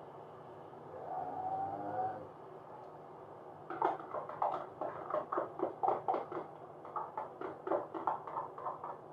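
A metal spoon knocking and scraping against a small plastic container, shaking the last of the beaten egg out into the pot. The rapid taps come about three a second from about four seconds in.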